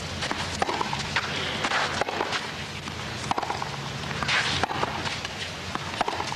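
Tennis stadium crowd murmuring between points, with scattered sharp knocks of a tennis ball being bounced on the court before a serve.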